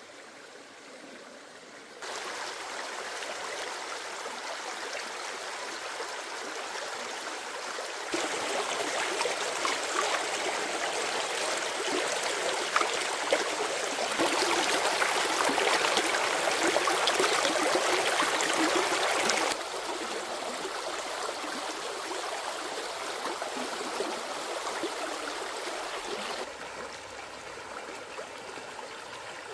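A forest stream flowing steadily. The water noise jumps louder in sudden steps through the first half, then drops back in sudden steps near the end.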